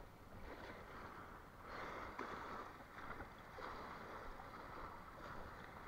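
Small waves lapping and splashing against a stone embankment, faint, swelling and falling back in a few soft washes.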